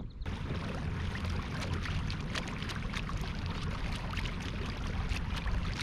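Water splashing and trickling around a moving kayak, with many small drips and a steady low rumble, starting abruptly just after the start.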